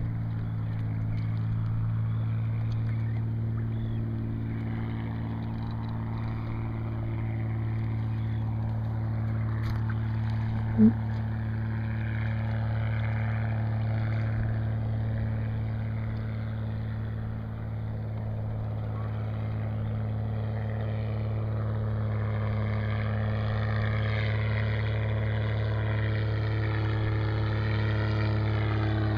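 Steady hum of a boat motor running at an even speed. A single short, loud chirp that rises in pitch comes about eleven seconds in.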